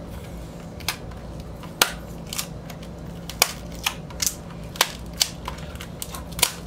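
Fingernails picking and clicking against a plastic CD jewel case while working the security seal tape off its edge: about ten sharp, irregular clicks.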